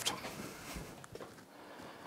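Faint handling sounds, a few light taps over quiet room tone.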